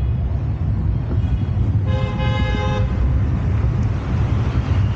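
A vehicle horn honks once for about a second near the middle, over a steady low rumble of wind and road noise as the bicycle rides along a city street.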